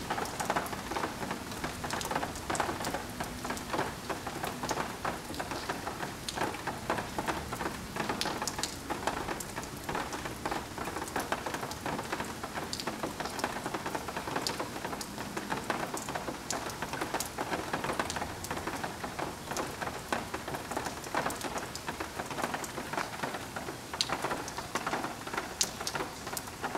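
Steady rain falling during a thunderstorm, with many sharp ticks of drops striking nearby surfaces.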